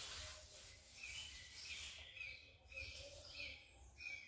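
Water jet from a hand-pump pressure sprayer hissing faintly onto the soil of a potted succulent, stopping about two seconds in. A small bird chirps over it, a short high note about every half second.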